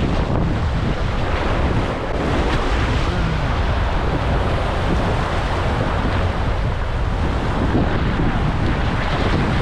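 Sea surf and wind buffeting the microphone: a steady rush of waves over a heavy low rumble.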